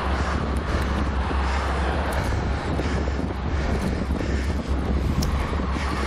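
Steady wind noise buffeting the microphone with a constant low rumble, from riding a bicycle at speed.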